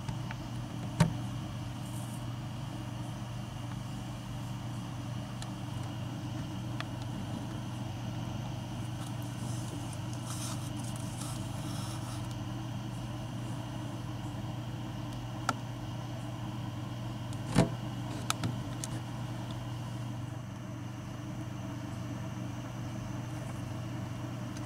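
A steady low mechanical hum, like a small motor or appliance, with a few short clicks and knocks: one about a second in and a small cluster about two-thirds of the way through.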